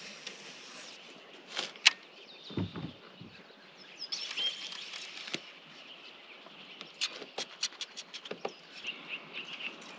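Small birds chirping in short high calls over faint outdoor ambience. A single sharp click comes just before two seconds in, and a quick run of clicks around seven to eight seconds in, from the angler's rod and reel handling.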